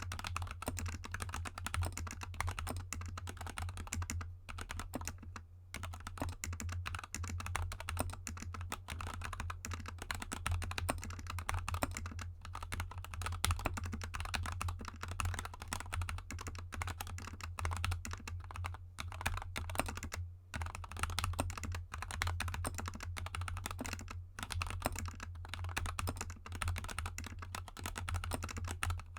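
Fast, continuous typing on a GK64 mechanical keyboard with lubed Gateron Yellow linear switches and XDA keycaps: a dense run of keystroke clacks, broken by a few short pauses. A steady low hum runs underneath.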